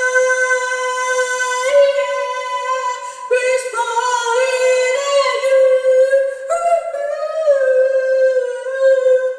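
A high-pitched voice holds one long sung note, stepping slightly up and down in pitch a few times, and cuts off abruptly at the end.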